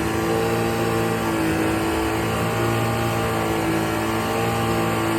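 Rebuilt Sea-Doo 1503 three-cylinder four-stroke engine running at a steady speed, its pitch wavering slightly, during a test run after a rebuild with a new cylinder sleeve, pistons and rings.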